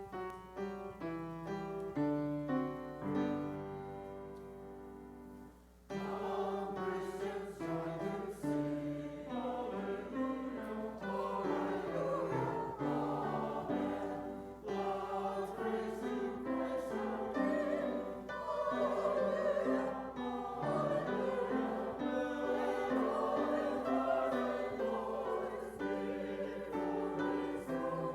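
A short piano introduction of single struck notes and chords, then, about six seconds in, a choir comes in singing with piano accompaniment.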